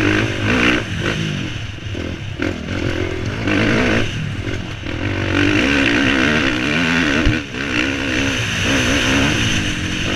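Dirt bike engine under hard riding, revving up and down as the throttle is worked over a rough rocky trail, with brief drops where the throttle is rolled off. A short thump about seven seconds in.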